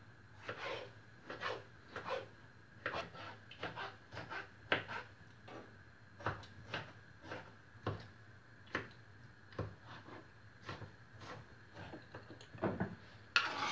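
Kitchen knife chopping tomatoes on a wooden cutting board: soft, irregular knocks of the blade on the wood, about one or two a second.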